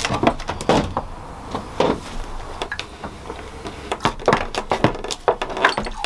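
A goat being milked by hand: short spurts of milk hitting a small cup, coming irregularly about one or two a second.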